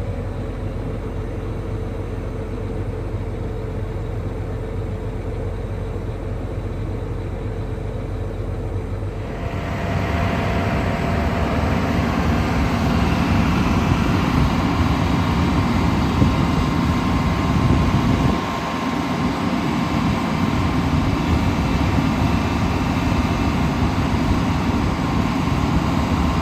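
John Deere 8370R tractor's diesel engine running steadily. About ten seconds in the sound gets louder and fuller, with a brief dip a little after eighteen seconds.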